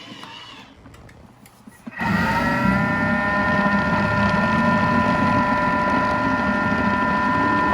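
Electric mixer starting up about two seconds in and running at a steady speed, its motor whining as it beats thick cake batter.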